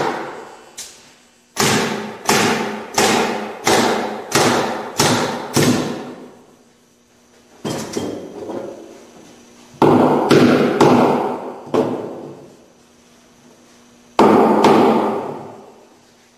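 Pneumatic nail gun firing a quick run of about ten nails into a wooden dome panel, roughly two shots a second. After a pause come two heavier thuds, about ten and fourteen seconds in.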